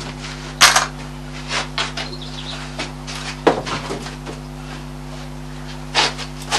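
Clattering knocks and clinks of tools and fittings being handled while stripping out a narrowboat engine bay, with a sharp knock just over half a second in and more about three and a half and six seconds in, over a steady low hum.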